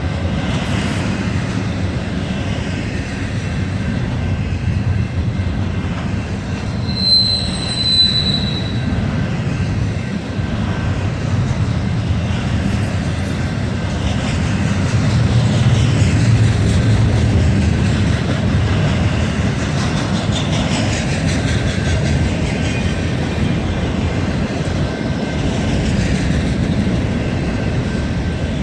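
A freight train rolling past close by, a steady loud rumble and rattle of wheels on rail. About seven seconds in, a wheel gives a brief high squeal.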